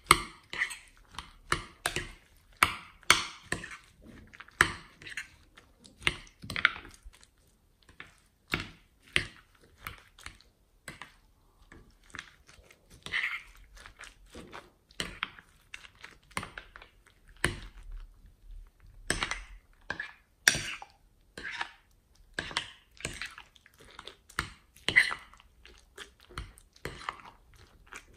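Foam beads crunching and crackling as they are stirred and folded into glossy slime, in short irregular bursts about one or two a second with brief pauses.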